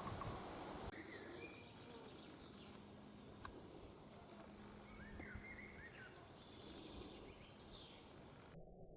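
Wind buffeting the microphone for about the first second, then cutting away to quiet woodland with a few short, high bird chirps. A faint low steady tone runs for a few seconds in the middle.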